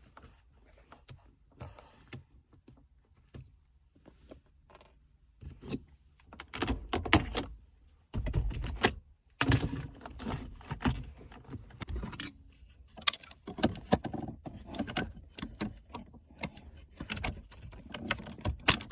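Plastic trim of an Infiniti G37's center console being pried loose and handled: irregular clicks, rattles and knocks, sparse and faint at first, then denser and louder from about six seconds in.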